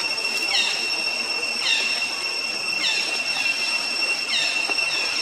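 Forest ambience: a steady high-pitched insect drone, with short falling bird chirps repeating about once a second.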